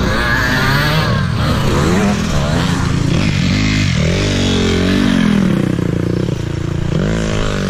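Motocross dirt bike engine revving up and down repeatedly as the rider works the throttle and gears on an off-road track.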